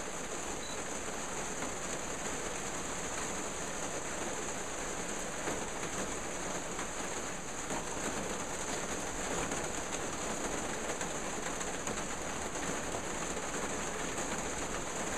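Steady rain falling on a greenhouse's plastic roof and walls, an even continuous hiss with faint scattered drop ticks.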